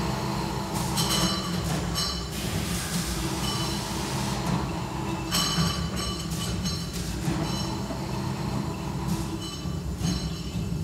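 Heavy machinery running with a steady low hum, broken by several bursts of high metallic squealing lasting a second or two each.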